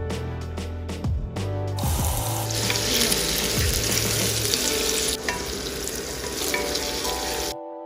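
Food frying in a hot pan: a steady sizzling hiss that starts about two seconds in, grows a little louder soon after, and cuts off suddenly near the end, over background music.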